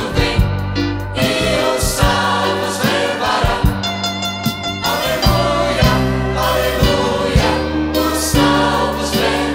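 Gospel choir singing over a band, with a sustained bass line and a steady drum beat.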